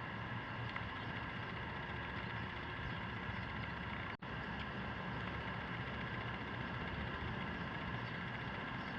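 Steady low background hum and hiss with no distinct events, broken by a very brief dropout about four seconds in.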